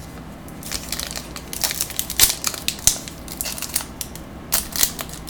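Crinkling and tearing of a trading-card pack's wrapper being handled and ripped open, in irregular crackly rustles starting about a second in.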